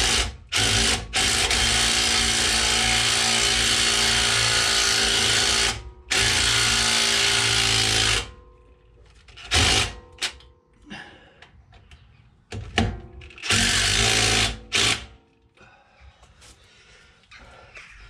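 Cordless impact driver running in short runs as it winds brake caliper guide pin bolts in. It gives two quick blips, then a steady run of about five seconds and another of about two, then a few short bursts later on.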